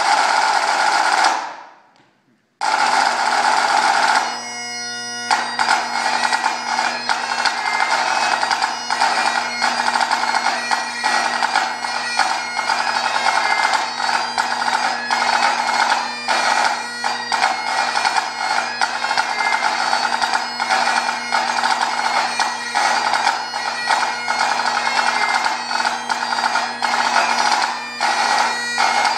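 Great Highland bagpipe and pipe-band snare drum playing live. After a short break about two seconds in, the pipe drones strike up, the chanter comes in a couple of seconds later, and a lively tune runs over the steady drones with sharp snare drum strokes beating along.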